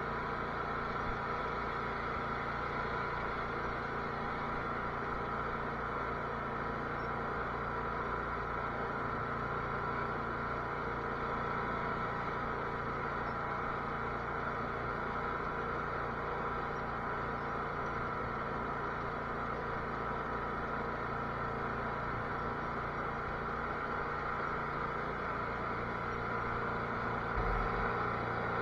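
Cub Cadet garden tractor engine running steadily, its tone changing slightly near the end.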